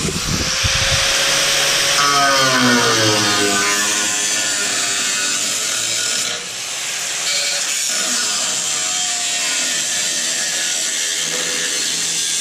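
A power tool cutting through damaged metal on a dump truck part. It runs loud and steady, its pitch sagging and recovering as it bears into the cut, with a brief let-up about six seconds in.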